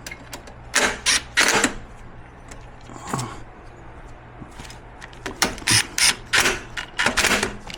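Seat-plate screws on a power wheelchair being tightened with a tool, heard as several short mechanical bursts, a few early on and a cluster in the second half.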